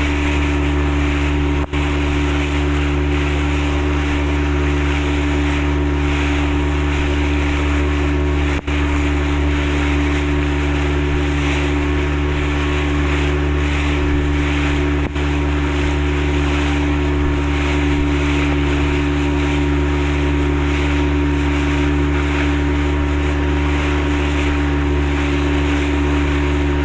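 Motorboat engine running at a steady speed: a constant low drone that holds the same pitch throughout and drops out for an instant three times.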